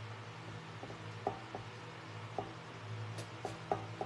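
Irregular light taps of a fingertip dabbing on a silver-plated metal tray, each with a short ring, over a steady low hum.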